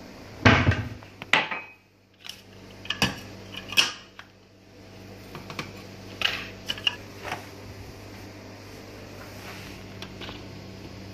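Kitchen clatter while making a mug of instant coffee: a loud knock about half a second in, then a series of sharp clinks of a ceramic mug and other crockery on the counter, over a steady low hum.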